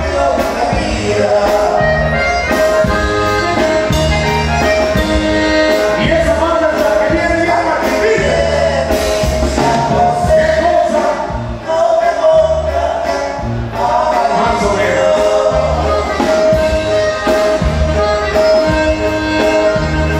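Live norteño band playing a dance tune: button accordion carrying the melody over bass and a steady drum beat.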